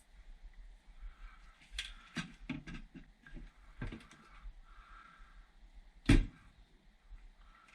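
Clicks and knocks of tools and metal furnace parts being handled during disassembly: a quick run of small knocks, then a single loud knock about six seconds in.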